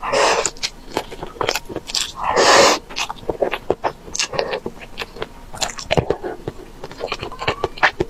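Close-miked eating: wet mouth clicks and chewing as braised corn on the cob and rice are bitten and chewed, with two louder airy bursts, one at the start and the loudest about two and a half seconds in.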